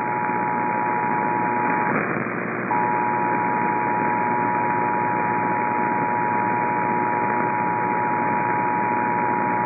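Emergency Alert System two-tone attention signal: two steady tones sounding together a little below 1 kHz, received over radio through a constant static hiss. The tone drops out briefly about two seconds in, then resumes. It is the alert tone that heads an emergency broadcast, here a tornado warning.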